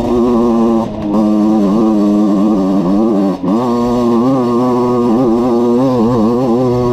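Small two-stroke engine of a Valenti RME 50cc enduro bike running hard, its revs rising and falling over and over under changing throttle, with a brief drop about three and a half seconds in.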